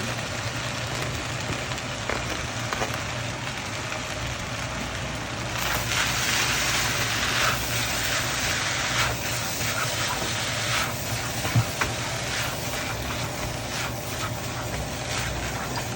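Fried rice being stir-fried in a hot pan: a steady sizzle, stronger from about six seconds in, with frequent short scrapes and clinks of the spatula against the pan, over a constant low hum.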